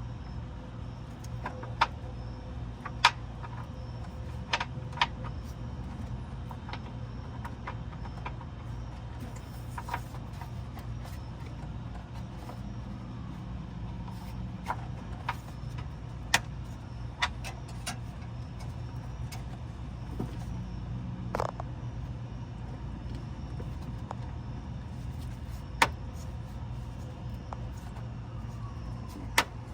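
Hand tools clinking and knocking on metal: about fifteen sharp clicks spread irregularly, over a steady low hum.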